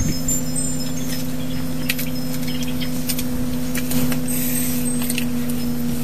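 Low chime tones ringing steadily, with a few light clicks and knocks scattered through.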